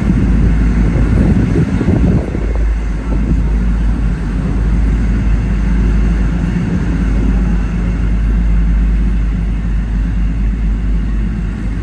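A steady, loud low rumble of a vehicle running, a little louder in the first couple of seconds.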